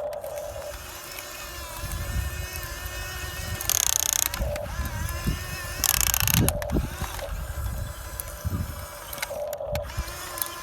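Small geared electric motors of a radio-controlled excavator whining and grinding as the machine works, with two short loud hissing bursts about four and six seconds in.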